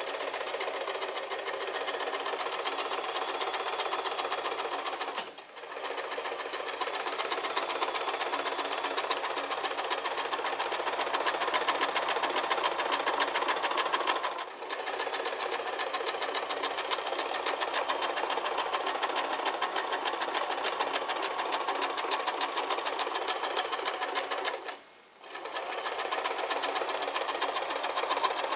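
Kenmore 12-stitch sewing machine running, its needle stitching straight and zigzag seams through felt with a rapid, even rhythm of strokes. It stops briefly three times, the longest break near the end.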